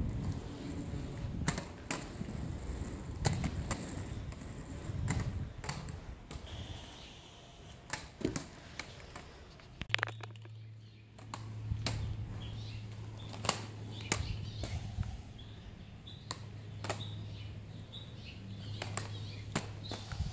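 Quad roller skates with outdoor wheels rolling over poured concrete: a low rolling rumble with scattered sharp clicks and knocks from the wheels and strides. From about halfway a steady low hum sits under it.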